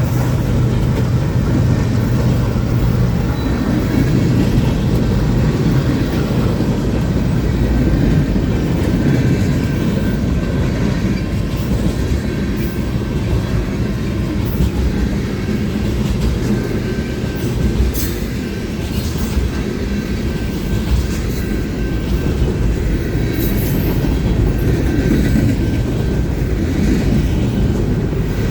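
Freight cars of a long mixed freight train rolling past: a steady loud rumble of steel wheels on rail, with occasional sharp clicks.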